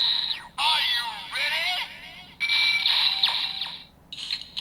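Kamen Rider Build Rabbit Tank Sparkling Full Bottle toy playing electronic sound effects through its small speaker: bright warbling tones that slide down in pitch, in four bursts with short gaps.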